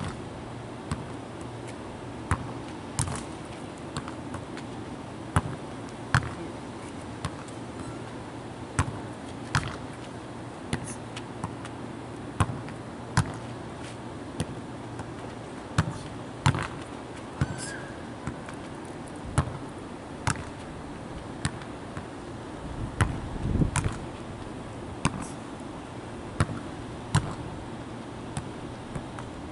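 A soccer ball kicked again and again against a brick wall and trapped on the rebound: sharp thumps of foot and wall about once a second, over a steady low rumble.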